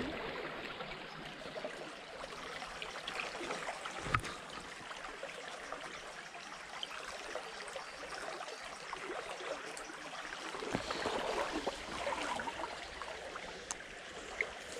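Small shallow stream running and rippling over stones, with a sharp click about four seconds in and a fainter one near the end.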